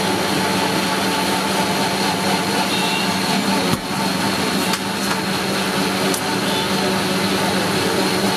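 Steady mechanical hum with even background noise and faint voices.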